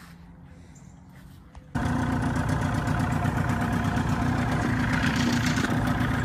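Old Evinrude (OMC) outboard motor running steadily, coming in abruptly about two seconds in after a faint low hum.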